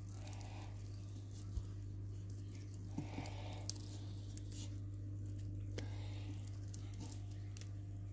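A Siberian cat eating cooked chicken while the meat is torn apart by hand beside it: soft wet chewing and tearing with a few small clicks, over a steady low hum.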